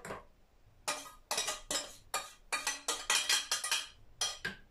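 Metal spoon clinking and scraping against a small stainless-steel saucepan in a quick, uneven run of strikes. It starts about a second in and stops shortly before the end.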